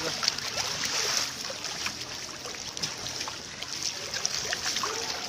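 Pool water splashing and lapping around an inflatable water-walking ball as it moves on the pool, a steady wash of water noise with scattered small clicks and splashes.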